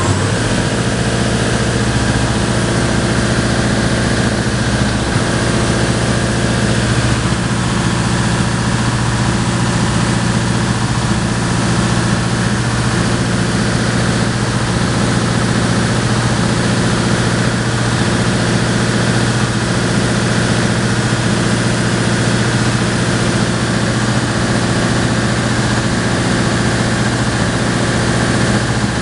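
Capital SDM-37A wide-belt sander running steadily at full speed with its main spindle and infeed belt on: a loud, even hum with a strong low tone over a constant rush of belt and air noise.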